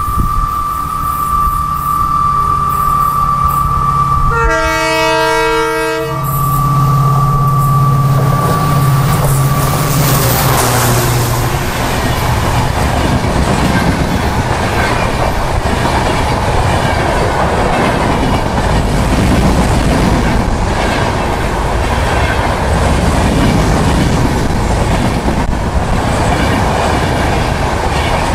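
EMD WDP4D diesel locomotive passing at speed: a steady high whine over the engine's low drone, with a short chord-like horn blast about five seconds in. From about ten seconds in the LHB coaches rush past with steady wheel-on-rail noise.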